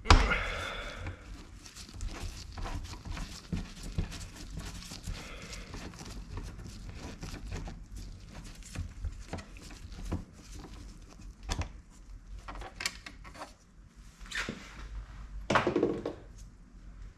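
Scattered clicks, light knocks and crinkling from parts of a car door's electric window mechanism being handled, with louder clatters right at the start and about a second and a half before the end.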